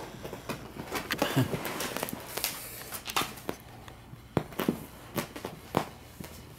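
Pocket beagle puppies scampering and scuffling about on carpet: scattered light taps, scuffs and clicks of small paws and play.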